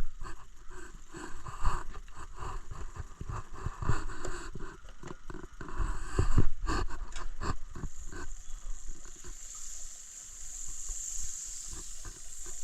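Clatter and knocks of cookware being handled for several seconds. Then, from about eight seconds in, food starts sizzling in a hot frying pan, a steady hiss that grows.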